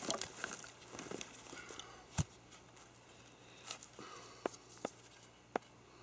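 Shuffling footsteps and rustling in dry leaf litter for the first couple of seconds, then a handful of separate sharp clicks and light knocks, less than one a second.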